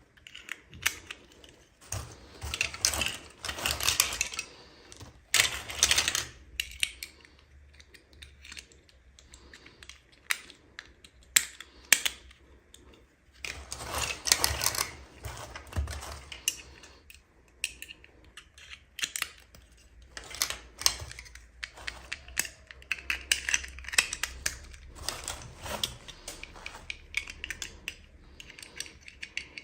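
Hands unboxing small plastic toys: packaging rustling and crinkling in a few longer swells, with many small clicks and taps of plastic pieces between them.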